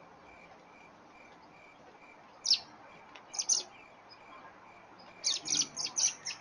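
Small birds calling on the ground: one sharp call about two and a half seconds in, a pair a second later, then a quick run of calls, several a second, starting near the end.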